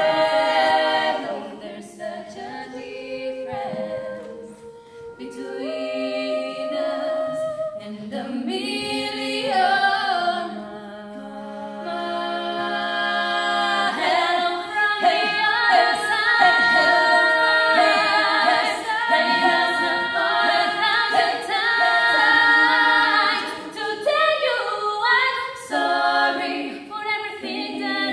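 Five-voice female a cappella group singing in close harmony with no instruments. The voices grow louder and fuller about halfway through.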